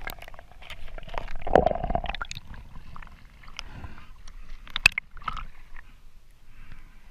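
Muffled water sloshing and gurgling around an action camera as it dips under the surface and comes back up, with scattered splashes and clicks. One sharp click comes about two-thirds of the way through, and the sound grows quieter near the end.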